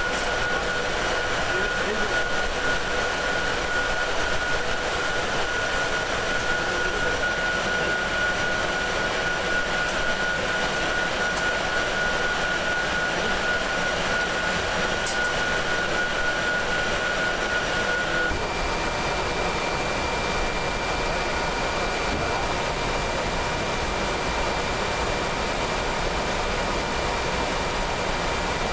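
Steady machinery hum and hiss with high, even whining tones; the tones change abruptly about 18 seconds in.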